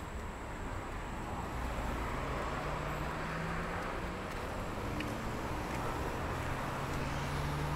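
City street traffic: a steady wash of car tyre and engine noise, with the hum of a passing engine coming up twice.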